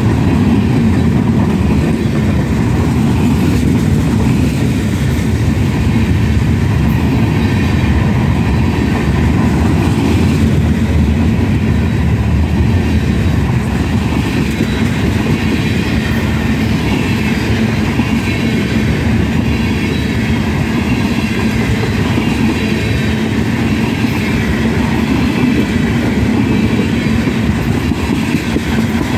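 Loaded freight train cars rolling past at speed close by: a steady, loud rumble of steel wheels on rail, with a faint high squeal wavering above it.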